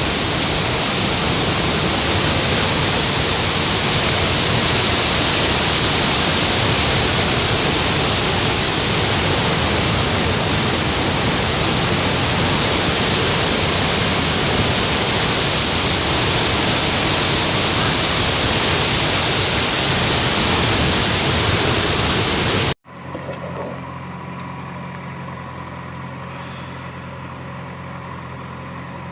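Loud, steady rush of water from heavy rain or pouring floodwater. It cuts off abruptly about three-quarters of the way through, giving way to a much quieter steady low hum.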